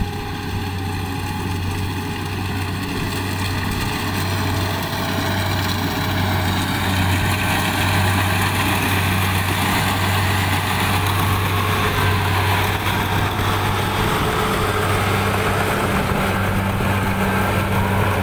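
Tracked rice combine harvester running, a steady low engine hum with the clatter of the machine over it, growing louder over the first several seconds and then holding steady.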